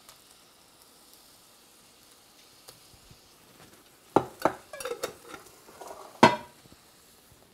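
Onions and garlic sizzling faintly in a cast iron skillet. About four seconds in, a run of sharp knocks and clinks as the glass jar of pepperoncinis is handled and set down on the countertop, with one loud knock near the end.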